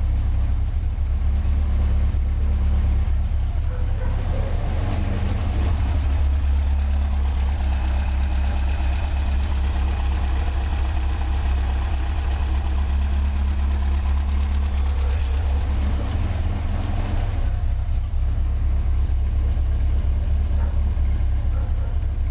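Car engine idling steadily, with the light tapping like drumsticks that comes in time with the exhaust, which the owner still hears after a partial fix. A faint high whine joins in for a while in the middle.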